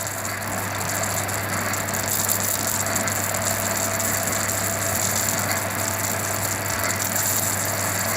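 A machine running, with a dense, rapid crackling rattle over a steady low hum; the rattle cuts off suddenly at the end.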